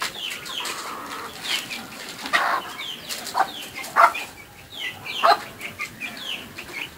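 Chicks peeping over and over in short, high chirps that fall in pitch, with a few louder, sharper clucks from the hens in between.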